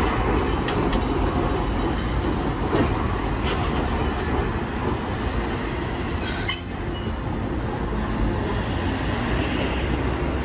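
Hiroshima Electric Railway streetcar running over the rails as it rounds a curve at low speed, with a brief high-pitched wheel squeal a little past halfway.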